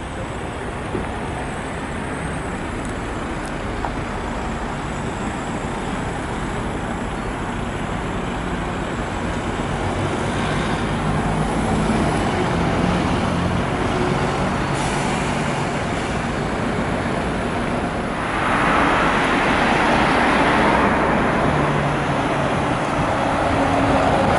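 Street traffic with city buses and cars driving past, slowly growing louder. About three quarters of the way through, a bus passing close adds louder engine and tyre noise.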